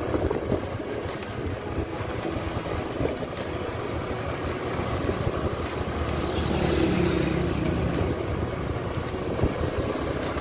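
Motorcycle riding at a steady cruise, its engine running under a constant rush of road and wind noise; the engine sound swells a little about six to eight seconds in.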